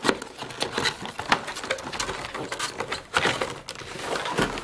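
A cardboard retail box being opened by hand: the end flap is pulled open and the box is tipped and handled. Irregular rustling, scraping and light tapping of cardboard.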